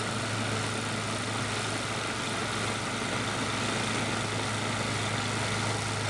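Two-stage snowblower's gas engine running steadily at a constant pitch while its auger clears snow and throws it out the chute.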